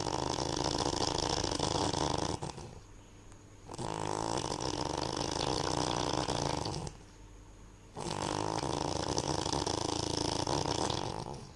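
Loud snoring: three long rasping snores, each about three seconds, with short quieter pauses between them.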